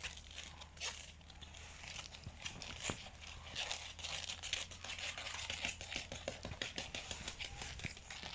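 Boston terrier puppies scuffling and mouthing at a hand on a wooden floor: a dense run of small clicks, scrapes and rustles, busier in the second half.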